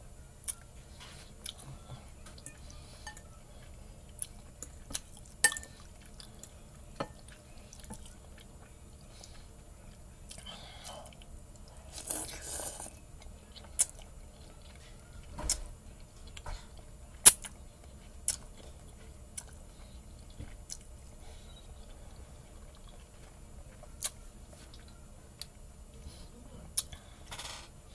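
Someone eating ramen noodles close to the microphone: soft chewing with scattered sharp clicks and taps, the two loudest about five and seventeen seconds in, and a short noisy stretch about twelve seconds in.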